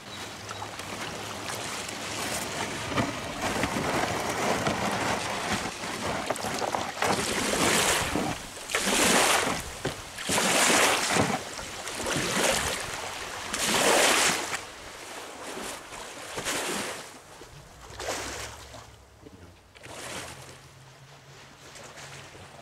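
Canoe running down a stream riffle: water rushing and splashing against the hull and paddle. Loud splashing surges come about every one and a half to two seconds through the middle, and the sound grows quieter near the end as the water calms.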